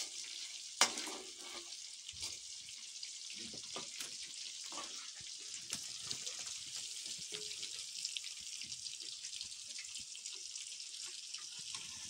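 Battered fish pieces deep-frying in hot oil in a steel karahi, a steady sizzle, with the clink and scrape of a slotted steel ladle stirring them and one sharp clink about a second in. This is the last batch finishing in the oil with the burner already turned off.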